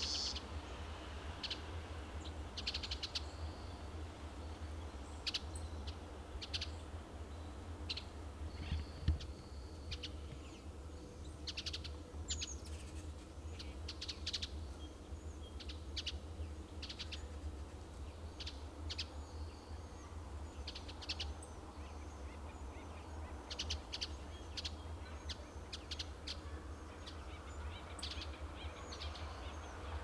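Western bluebirds giving many short chirping calls, singly and in quick clusters, over a steady low rumble.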